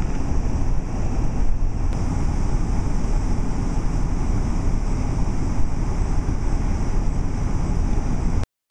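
Wind buffeting the microphone: a loud, restless low rumble with no clear tones, cutting out completely for a moment near the end.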